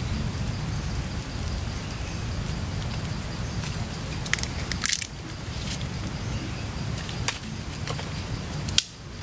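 Small kindling fire catching, with a few short sharp crackles and snaps from the burning and handled sticks, the loudest near the end, over a steady low rumble and a faint steady high tone.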